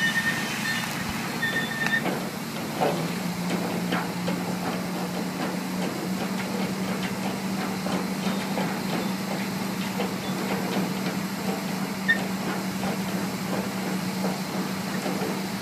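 Crawler-mounted pile-driving rig driving a timber pile into the ground: its engine runs with a steady low hum that steps up slightly about three seconds in, under irregular knocks and rattles from the driving.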